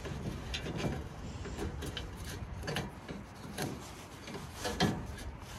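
Hands handling a thin tie against the steel frame of a folding truck-bed ladder as it is tied on: irregular short scrapes, rubs and light clicks.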